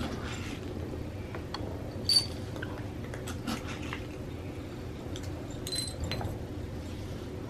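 Dry cat food being dropped into small dishes: scattered sharp clicks and clinks, the loudest about two seconds in and a few more around six seconds in.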